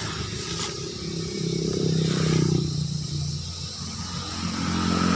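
A motor vehicle engine running. Its pitch rises about a second in, drops lower around three seconds in, and climbs again near the end.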